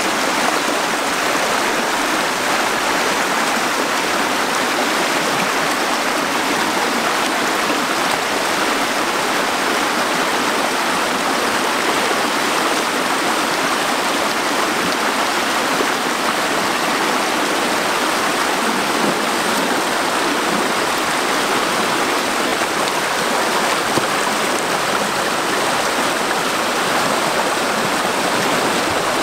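Fast, shallow rocky stream running over rapids: a steady, even rush of water.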